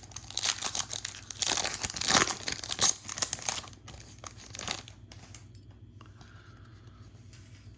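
A Topps Chrome trading-card pack's wrapper being torn open and crinkled for about three and a half seconds, with one more short rustle a second or so later.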